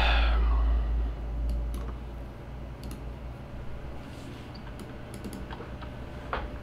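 Scattered faint clicks of a computer mouse and keyboard while moves are made on an online chess board. A low rumble fades out over the first second or so.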